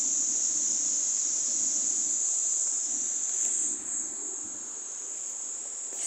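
A steady, high-pitched insect drone, one unbroken shrill hum that drops somewhat in level about two-thirds of the way through.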